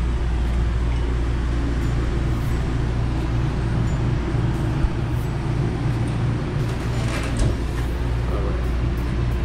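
A steady low droning hum. A brief faint knock comes near the middle and another about two and a half seconds later.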